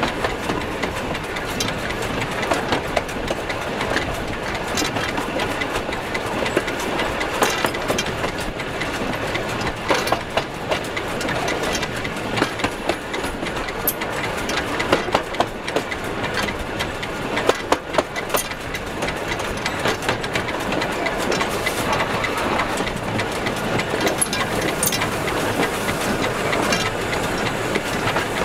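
Steam locomotive 'Spreewald' running along the track: a steady rumble of the turning wheels and motion work, with scattered sharp clicks and knocks.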